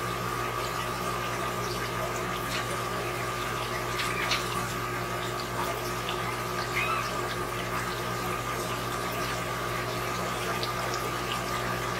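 Water running steadily through PVC aquarium siphon drain plumbing over a constant electrical hum of fish-room equipment, with a few faint clicks.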